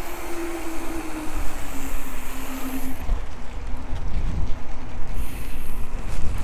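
A mountain bike ride with wind buffeting the action camera's microphone: a steady low rumble, and a humming tone that slowly falls in pitch and fades about three seconds in, when the rumble grows stronger.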